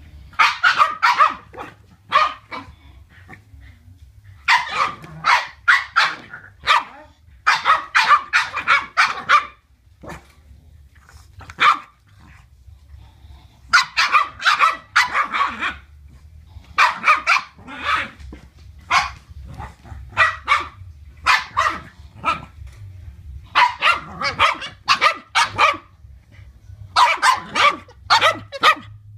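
Boston terriers barking in play, in volleys of several quick, sharp barks every few seconds with short pauses between.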